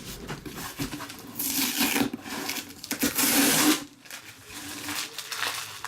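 Rubbing and rasping of card boxes and packaging being handled, with two longer scraping stretches, one about a second and a half in and one about three seconds in.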